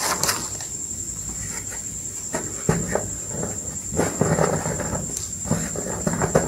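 Reformed gym chalk block being broken apart by hand, crunching and crumbling into powder: scattered crunches from about two and a half seconds in, densest around four seconds and again near the end. A steady high-pitched whine runs underneath.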